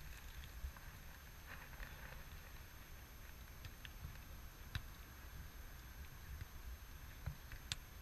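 Quiet outdoor ambience: a faint low rumble of wind, with a few faint sharp taps about five seconds in and again near the end.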